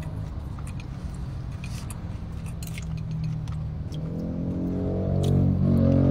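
Steady low hum inside a car cabin, with a few light clicks of a metal spoon against a ceramic bowl. Sustained low music notes come in about four seconds in and grow louder.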